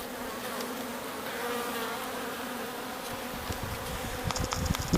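Honeybees buzzing around an opened hive, a steady, slightly wavering hum of many bees. From about three seconds in a low, irregular rumble joins and grows louder.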